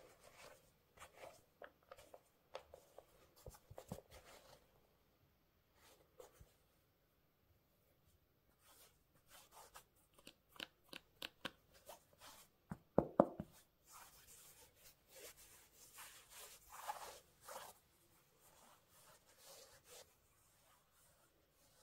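Sneakers and their packaging being handled: faint rustling and crinkling of paper with scattered light taps and clicks, and a louder knock about 13 seconds in.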